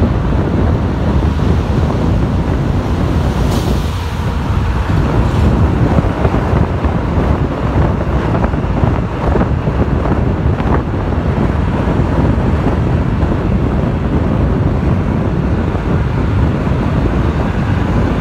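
Car on the move, with a steady low road rumble and wind noise on the microphone.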